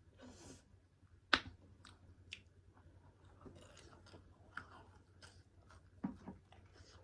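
Close-up chewing of a mouthful of pork curry and rice, with soft wet crunches, and a sharp click about a second in that stands out above the chewing.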